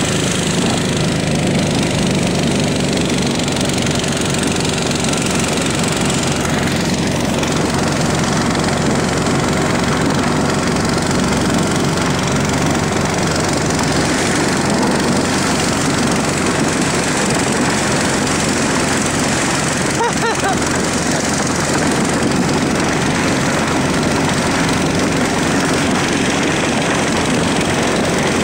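An engine running steadily: a loud, constant drone with a low hum that stays even throughout.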